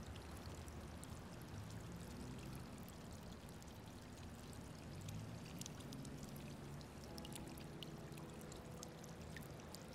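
A quiet, steady rushing hiss of background ambience with scattered faint ticks. About seven seconds in, soft sustained music notes fade in underneath.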